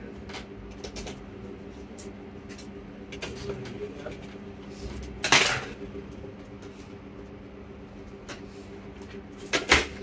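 Small hard clicks and clatter as a laptop motherboard and its heatsink and fan assembly are handled on a workbench. There is a louder clatter about five seconds in and two sharp clicks near the end, over a steady low hum.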